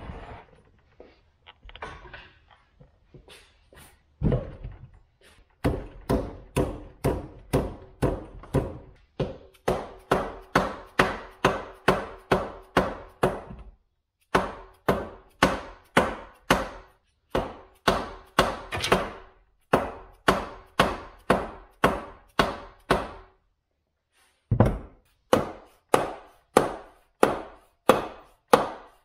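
Repeated hammer blows, about two a second, on the steel wheel and axle hub of a 1960s Craftsman riding-mower transaxle, driving the wheel off its shaft. The blows come in three long runs with short pauses between them, and a short metallic ring follows them. Quieter handling knocks come first.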